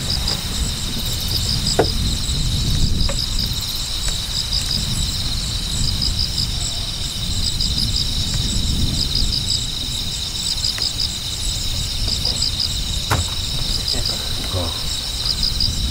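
Crickets chirping: a steady high trill with short chirps repeating in quick groups, over a low rumble and a few faint clicks.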